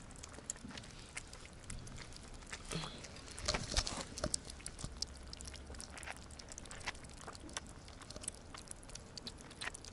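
Several kittens eating from a plate, with soft, irregular chewing and smacking clicks that come a little thicker around the middle.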